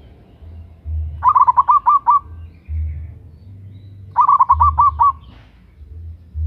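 Zebra dove (perkutut) cooing: two quick runs of about seven short notes, each run about a second long and about three seconds apart. A low rumble lies underneath.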